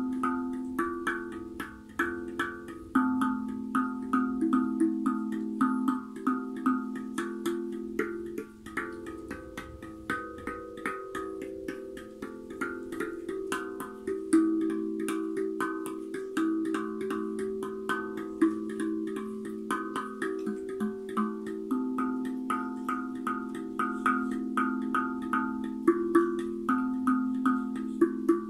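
Guda Freezbee steel drum played by hand: a quick, continuous run of finger-struck notes that ring on and overlap, shifting between a few pitches.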